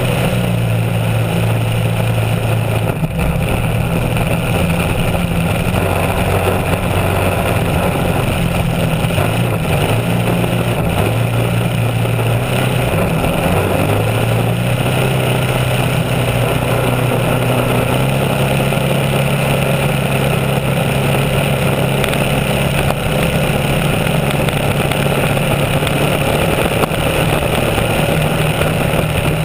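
Racing outboard engine of a small A-class hydroplane running hard and steady at speed, its pitch shifting slightly now and then, over the continuous rush of spray and wind.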